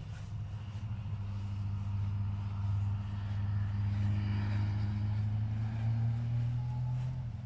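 A motor vehicle passing by: a steady low engine hum that swells over several seconds, then drops in pitch and fades near the end.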